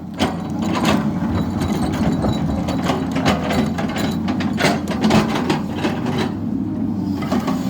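Sany excavator's diesel engine running under load, with irregular knocks and cracks as its bucket breaks up and scrapes the masonry of a drain.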